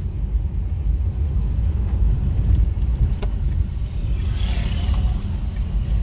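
Steady low rumble of a car driving slowly over an unpaved dirt road, its engine and tyres heard from inside the vehicle, with a faint click about three seconds in.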